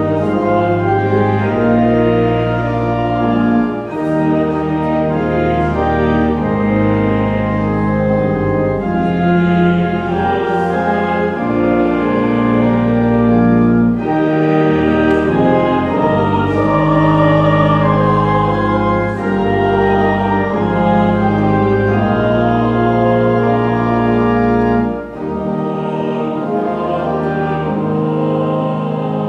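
Church pipe organ playing a hymn in full, sustained chords, pausing briefly between phrases.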